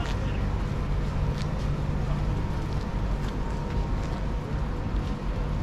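Steady low rumble of outdoor street noise, with a few faint short ticks scattered through it.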